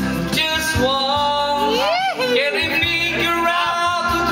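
A man singing through a handheld microphone over backing music. His voice swoops up and down in pitch about two seconds in.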